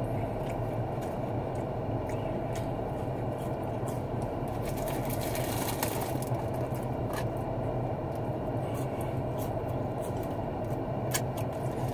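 Steady hum of an idling car heard from inside the cabin, with light scattered rustles and clicks as fries and a paper-wrapped burger are handled.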